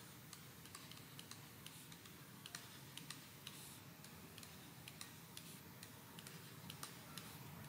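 Near silence with faint, irregular clicks of a stylus tapping on a drawing tablet while handwriting.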